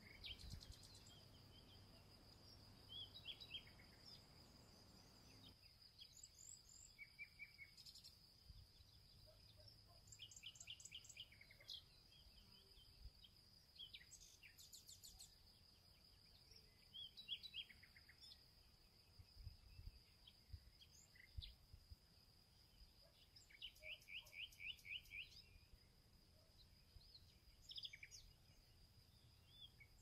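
Faint songbirds calling and singing, with short chirps and quick runs of repeated notes, over a constant high-pitched insect trill. A low rumble of wind fades out about five seconds in.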